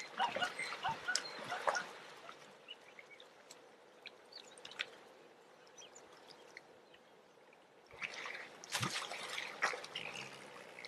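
Water splashing and dripping around a crocodile chewing on a bone in shallow water. Small splashes and drips at first, then a quieter stretch, then heavier splashing about eight seconds in.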